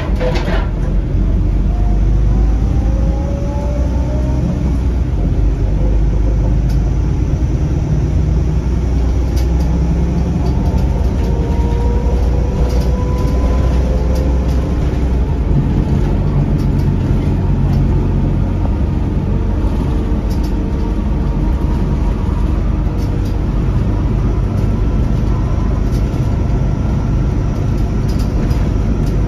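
Interior ride noise of a 2008 NABI 40-SFW transit bus under way: the Cummins ISL diesel and ZF Ecomat automatic transmission give a steady low rumble, with a whine rising in pitch a few times as the bus pulls away and gathers speed. A sharp knock sounds right at the start.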